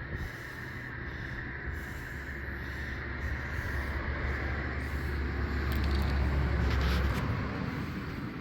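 A motor vehicle passing close by: a low engine and road rumble that builds to a peak about seven seconds in, then drops away.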